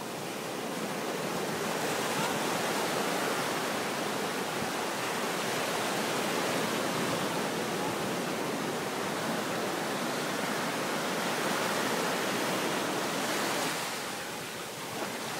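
Surf breaking and washing up the beach at the water's edge, a steady rushing that eases briefly near the end.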